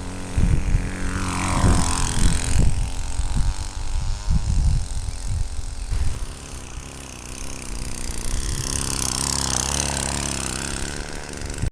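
Small two-stroke 25cc weed-eater engine on a friction-drive bicycle running, its pitch sliding down about a second in and rising again near the end, with irregular low rumbling thumps through the first half.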